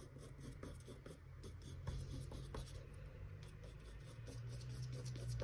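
Oil pastel stick scratching across paper in repeated short strokes, drawing a crosshatched grid of lines.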